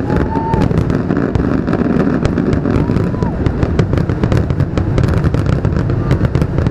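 Aerial fireworks shells bursting in rapid succession: a dense, continuous run of booms and crackling bangs over a steady low rumble.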